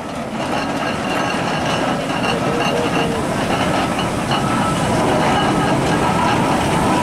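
A 1919 Fowler steam ploughing engine, about 20 tons, running past: a dense, continuous mechanical noise that grows steadily louder as it approaches.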